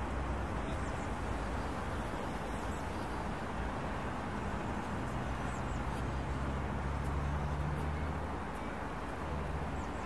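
Steady hum of road traffic. A low engine drone swells about halfway through and fades near the end, like a heavy vehicle passing.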